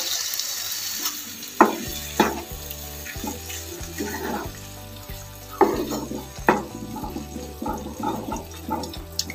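Milk pouring and hissing into a hot wok, fading in the first second. Then a spatula stirring the curry, with sharp knocks and scrapes against the pan a few times, the loudest about 1.5 s and 6.5 s in. Soft background music comes in about two seconds in.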